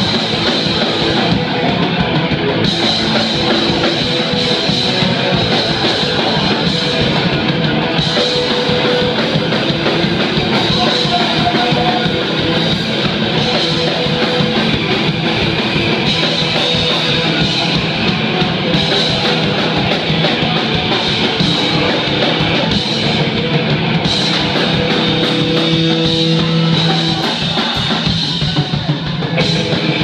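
Punk rock band playing live: distorted electric guitars and a drum kit, loud and steady throughout.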